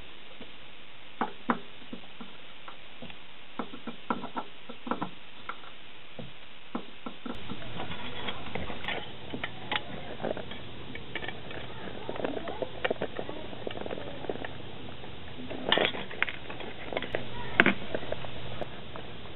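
Scattered small clicks and taps of hand tools and screws against a steel lathe carriage mount. From about seven seconds in, a steady low hum runs behind the clicks and crinkles of a pleated plastic bellows being handled and fastened, with two sharper clicks near the end.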